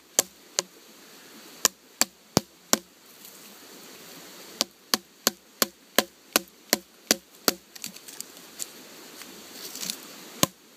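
Batoning a Condor Bushlore bushcraft knife into a log: a wooden baton knocks sharply on the blade's spine, a few single blows, then a steady run of about three blows a second, and one more near the end.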